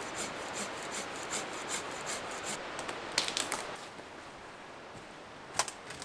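Folding pruning saw cutting through a branch in quick, even back-and-forth rasping strokes that stop after about two and a half seconds. A few sharp cracks follow, then a single sharp knock near the end.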